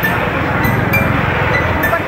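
Busy market-street noise: a steady rumble of traffic engines mixed with crowd noise, with scattered short clicks.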